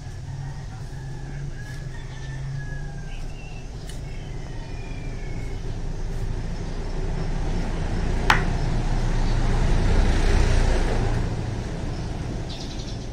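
A rooster crowing faintly in the first few seconds, then a passing vehicle that swells to its loudest about ten seconds in and fades away. A single sharp click comes just before the peak.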